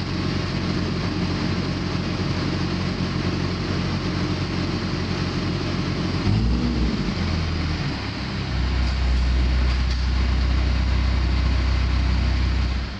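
Case N Series backhoe loader's diesel engine running steady. About six seconds in its pitch dips and rises, then a louder, deeper steady drone sets in.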